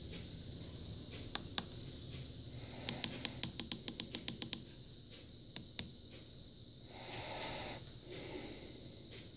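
Clicking of a Spypoint Link 3G trail camera's keypad buttons being pressed: two single clicks, then a fast run of about a dozen clicks, about seven a second, then two more. A soft rushing noise follows near the end.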